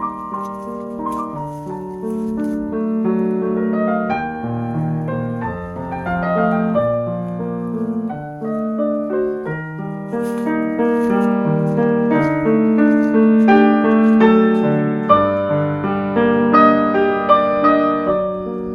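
Background piano music: a flowing melody over held chords.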